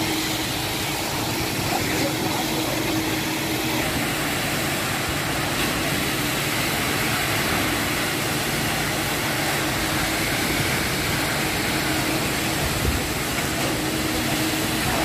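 Concrete pump truck's diesel engine and pump running steadily during a ready-mix concrete pour, a constant mechanical drone with a steady hum.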